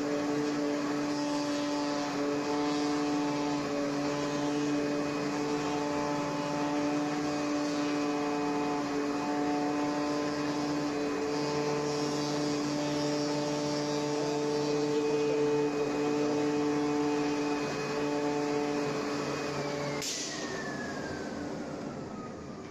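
CNC flatbed cutting machine running through a cut: a steady hum of several tones, with some motor tones switching on and off as the head moves. About twenty seconds in it stops with a click, and a whine falls steadily in pitch as the machine spins down.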